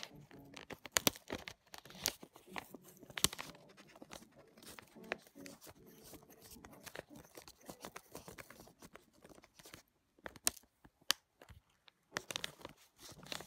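Irregular small clicks and scrapes of a metal 1/4-inch jack plug being handled, its metal barrel shell fitted and screwed on by hand.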